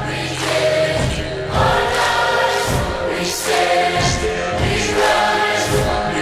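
Background music: a choir singing held chords over orchestral backing, with a drum hit about once a second.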